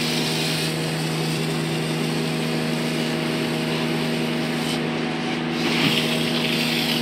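An engine running steadily at one pitch, with the hiss of water spraying from a fire hose.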